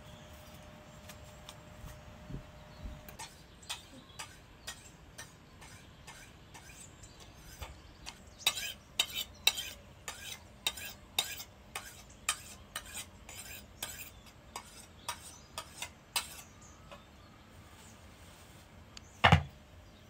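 Metal utensils clinking and scraping against cookware in a quick, irregular run of sharp clicks, densest in the middle, followed near the end by one loud knock.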